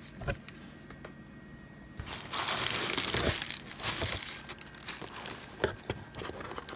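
Honeycomb kraft-paper packing wrap crinkling and rustling as it is pulled aside in a cardboard box. The crinkling is loudest from about two seconds in for roughly two seconds, then gives way to lighter rustles and small taps.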